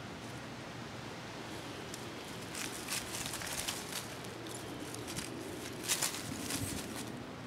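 A cat pouncing and scrabbling in grass and dry leaves: crackling rustles in two bursts, about three seconds in and again about six seconds in, over a steady background hiss.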